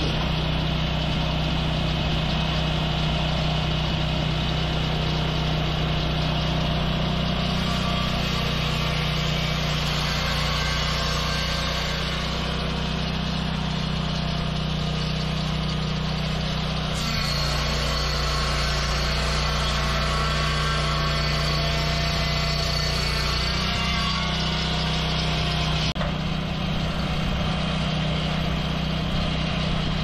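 Portable swing-blade sawmill's petrol engine running steadily at working speed as its circular blade saws along a walnut log. The sound shifts abruptly about halfway through and again near the end.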